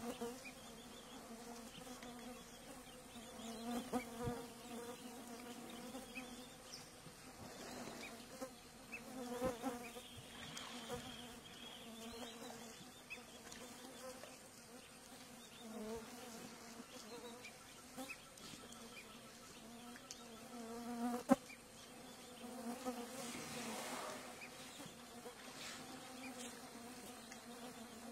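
Steady buzzing of many flying insects, with a few sharp clicks or knocks, the loudest about three quarters of the way through.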